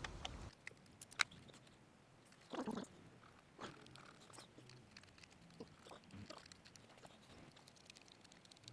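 Faint clicks and a short scrape of a wrench and metal parts being handled while unbolting a motorcycle turn signal's 8mm fastener. There are a couple of sharp clicks about a second in, a louder scrape around two and a half seconds in, then scattered light ticks.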